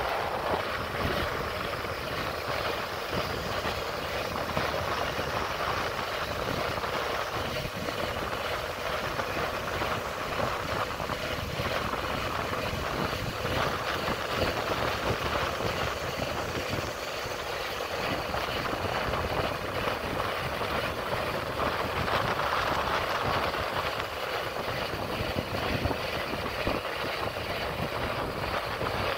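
Steady rush of wind over the microphone and road noise from a moving bike, with uneven low buffeting.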